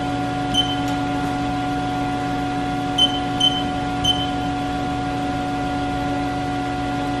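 Four short, high beeps from a Haas CNC mill's control-panel keypad as keys are pressed, over a steady machine hum.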